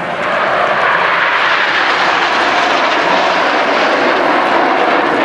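Red Arrows' BAE Hawk T1 jets flying past in formation: a loud, steady jet-engine roar that swells just after the start.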